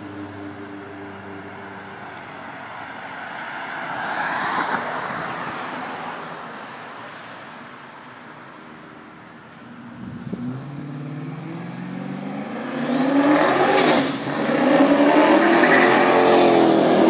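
Light passing traffic, then a turbocharged Chevrolet Silverado pickup accelerating hard toward and past. Its engine note rises under a high turbo whistle that climbs, dips once, then climbs again and holds while the truck is loudest near the end.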